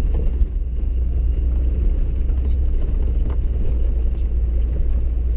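Four-wheel-drive vehicle driving through snow: a steady low engine and road rumble.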